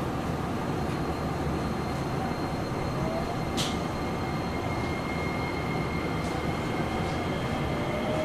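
Nagoya Municipal Subway Type 6050 train heard from inside the car: a steady running rumble of wheels and motors. A faint rising motor tone comes briefly about three seconds in and again near the end.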